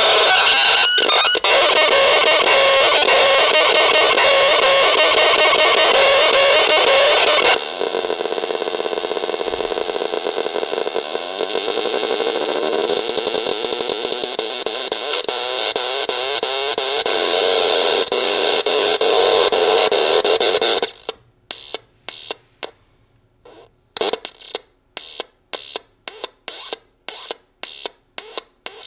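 VAPESONIC RX 21 abstract radio putting out dense electronic noise with wavering buzzy tones, which changes character abruptly about a quarter of the way in. Near the end it goes almost quiet, then pulses in short, evenly spaced bleeps, about three a second.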